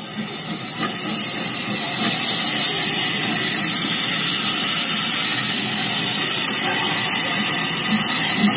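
Steam train sound effect: a steady hiss of escaping steam that builds over the first two seconds and then holds.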